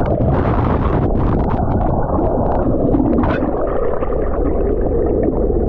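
Water rushing and gurgling past an action camera held underwater, heard muffled and rumbling through its housing, with scattered small bubble clicks.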